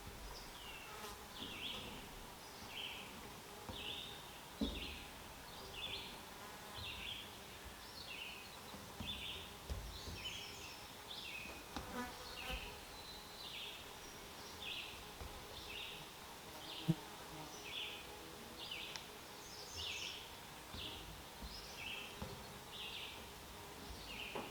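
Faint outdoor ambience with a small animal chirping over and over, a short high chirp about every three-quarters of a second. Two brief knocks sound, one about five seconds in and one near seventeen seconds.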